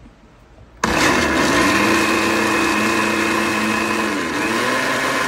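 Countertop blender with a glass jar switching on about a second in and running steadily at speed, chopping dried chiles in water into a salsa; its motor pitch sags slightly about four seconds in.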